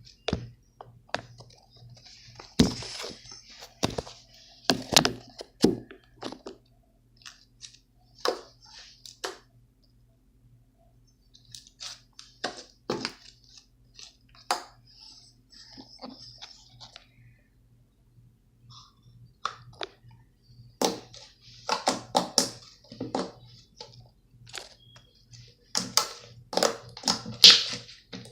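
Slime being handled, squeezed and poked: irregular crackles, clicks and squishy pops, in clusters with short quiet pauses between them.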